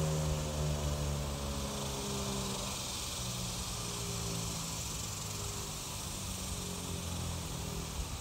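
Federal Signal 2001 outdoor warning siren winding down at the end of its brief weekly growl test. Its tone falls in pitch and fades over the first couple of seconds, leaving a faint low hum as the rotor coasts to a stop.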